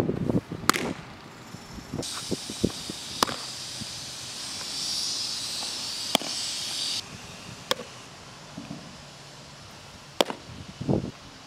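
Baseballs smacking into a catcher's leather mitt: a sharp pop every few seconds, about five in all. A steady hiss runs for a few seconds in the middle.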